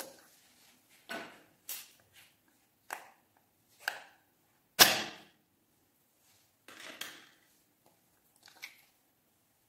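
A small plastic slime container being handled and opened: a series of short crackles and clicks as its lid and seal come off, the loudest about five seconds in.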